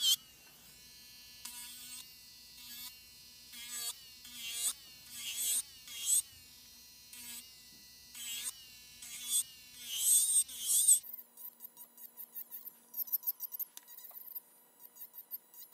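Electric nail file with a sanding band finish-filing an acrylic nail, played back in fast forward: a high whine with short, sharper rises about once a second. In the last few seconds it changes to a rapid ticking flutter.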